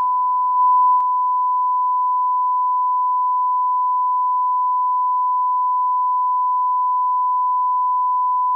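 Continuous electronic beep: one steady, pure high-pitched tone held without a break, briefly a little louder with a faint click about a second in.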